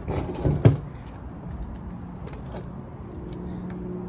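Metal clinks and clatter of hand tools on a refrigerator compressor, ending in a sharp knock about half a second in. A few light clicks follow over a steady low hum.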